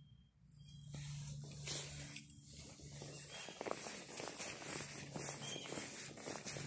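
Footsteps and a Lufkin measuring wheel rolling over dry, dormant grass: light irregular ticks and rustling that start about a second in, over a low steady hum.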